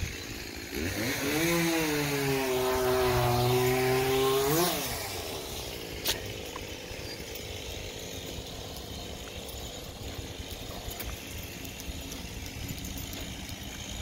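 A tree crew's small gasoline engine running, its pitch dipping and holding, then rising sharply before it drops away about five seconds in. A fainter steady engine hum and a single click follow.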